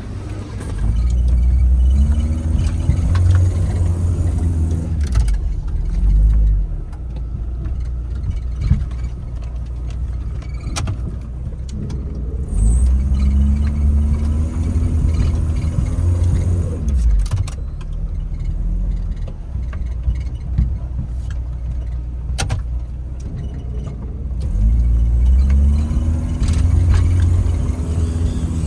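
Chevy Tracker's engine revving up and easing off three times as the plow truck makes pushes into the snow, with a few sharp knocks in between.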